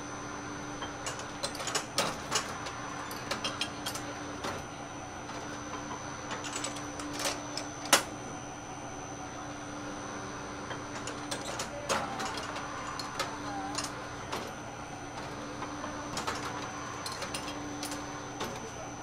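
Automatic cookie-baking machine running: a steady hum under irregular metallic clicks and clacks as the hinged metal mold plates move along the line, with one sharp clack about eight seconds in.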